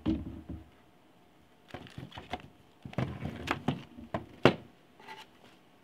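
Handling noise as a metal-cased EVGA 1000 G3 power supply is moved about and set down on a table: a thump at the start, then a run of short knocks and rustles, the sharpest knock about four and a half seconds in.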